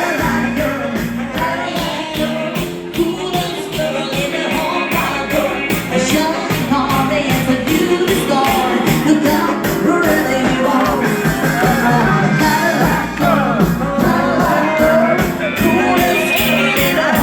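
Dance-band music in a rock and roll style, with a steady drum beat and a lead melody line.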